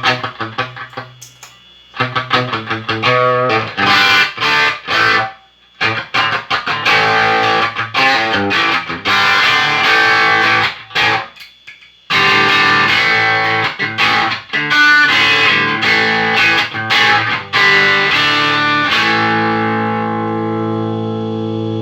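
Distorted electric guitar played through a Line 6 POD HD500X multi-effects processor: riffs and chords with short breaks, finishing on a held chord that rings out and fades.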